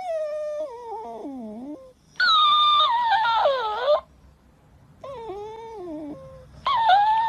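A Shiba Inu whining in long, drawn-out moans that fall in pitch, each one answered by a louder, higher-pitched copy of the same moan, like a talking plush toy repeating it back. The exchange goes back and forth twice.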